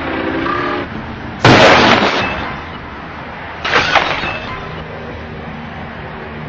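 Car collision: a sudden loud crash with breaking glass about a second and a half in, then a second, shorter crash a couple of seconds later.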